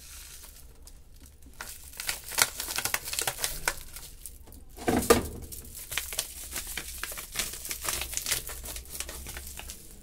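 Packet of washing-machine tub-cleaner powder crinkling and rustling as it is shaken and emptied into a top-load washer's tub, with a louder rustle about halfway through.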